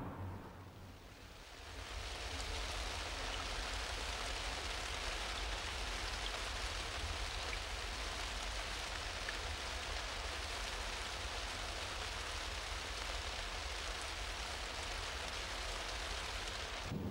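A steady, even outdoor hiss fades in about a second and a half in and holds level over a low hum.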